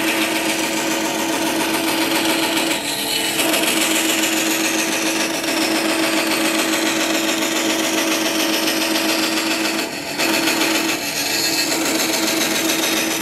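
Metabo band saw running and ripping a thin strip of wood: a steady motor hum under the rasp of the blade cutting. The cutting noise eases briefly about three seconds in and again near ten seconds as the wood is fed.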